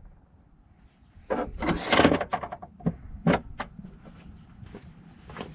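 Hands working with tools and parts in an engine bay: a scraping, rustling clatter lasting about a second, then a few sharp knocks.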